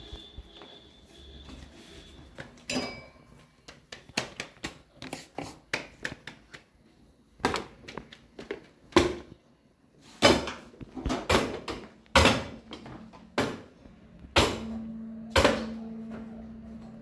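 Kitchen clatter: irregular knocks and clicks of objects being handled and set down, some in quick runs. A low steady hum comes in about two-thirds of the way through.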